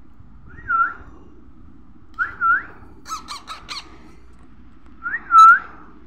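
Baby parrot giving three short, squeaky calls that dip and rise in pitch, the begging calls of a hand-fed chick taking food from a spoon. Halfway through there is a quick run of four short, sharper sounds, and the last call is the loudest.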